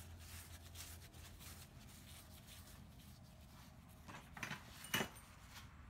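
Faint rustling of a paper towel wiping lapping compound off a small engine's crankshaft taper, with two short, sharp sounds about four and five seconds in, the second the louder.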